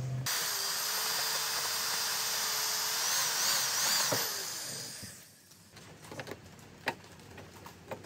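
Hand-held power drill running steadily at high speed against a plastic car bumper for about five seconds, then stopping. A few sharp clicks follow as a screwdriver pries at the bumper plastic.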